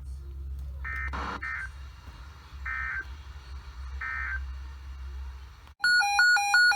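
Steady low hum from a weather radio recording, with three short electronic beeps. About six seconds in, the hum stops and a loud electronic alert tone starts, switching rapidly between a low and a high pitch.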